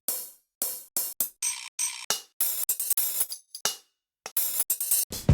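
Electronic hi-hat and cymbal sounds played in short, irregular snippets that cut off abruptly, with dead silence between them, as percussion clips or samples in a psytrance production are started and stopped. About five seconds in comes one deep kick-like thump.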